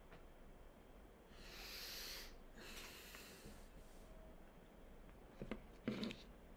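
A person's breathing, heard as two soft, breathy hisses in a row, the first longer, followed near the end by two small knocks.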